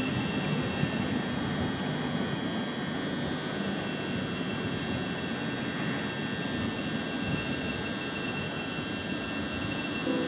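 Thameslink Class 700 electric multiple unit moving along the platform: a steady rumble of wheels on rails under a constant high electrical whine from its traction equipment.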